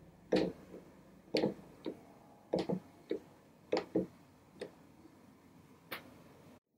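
Irwin Quick-Grip one-handed bar clamps being ratcheted tight by their trigger handles: about a dozen sharp, unevenly spaced clicks as the clamps close on a glued repair to a wooden chair leg.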